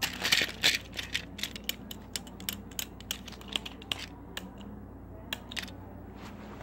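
An irregular run of small hard clicks and taps, thick in the first second and then thinning out to single clicks every half second or so, like small plastic objects being handled.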